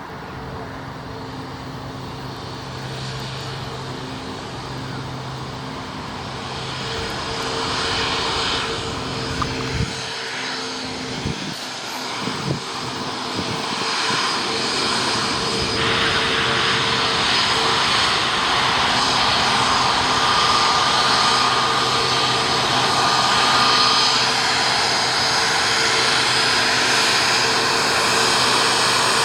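Jet engines of an Airbus A321neo airliner running, the steady whine and rush growing gradually louder as the aircraft comes nearer. A few brief knocks sound about ten to twelve seconds in.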